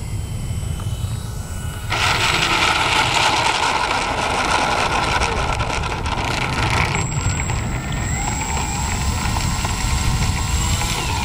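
Twin electric motors and propellers of a Twinstar RC plane, loud from about two seconds in as the plane comes in on the asphalt, then dropping about seven seconds in to a quieter whine that rises and falls as it taxis. Wind rumbles on the microphone throughout.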